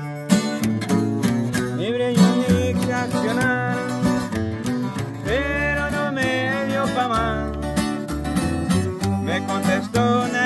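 Two acoustic guitars strumming and picking with an acoustic bass guitar holding low notes, in a sierreño-style corrido. A voice carries a wavering melody over them.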